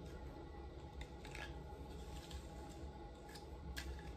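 Plastic-bristled detangling brush drawn through moisturised coily hair to detangle it: faint, irregular brushing swishes, about one or two a second, over a low steady hum.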